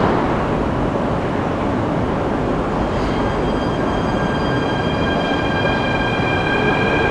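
Athens metro train at the platform below, heard down the escalator shaft: a steady rumble, joined about three seconds in by several steady high-pitched whines, with a further whine rising in pitch near the end.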